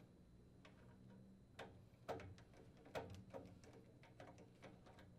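Faint clicks and taps of a flathead screwdriver working the screw terminals on a furnace control board's thermostat terminal block while wires are fastened. About a dozen short clicks, two louder ones near the middle, over a faint low hum.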